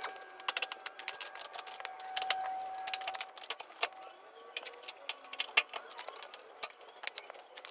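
An irregular run of sharp clicks and clinks, some closely bunched, with a faint steady tone beneath them that stops a little under halfway through.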